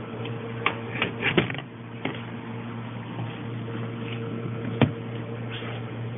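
Steady low hum of a baby-animal incubator's fan, with sharp clicks and knocks of handling against the plastic: a cluster about a second in, one near two seconds, and the loudest near five seconds.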